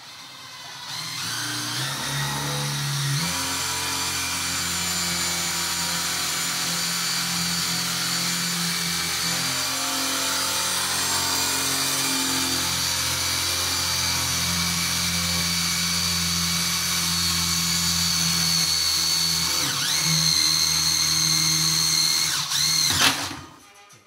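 Cordless drill boring a hole up through the bottom of a wooden wall cabinet. The motor whines at a steady speed for about twenty seconds, slows and wavers near the end, then stops.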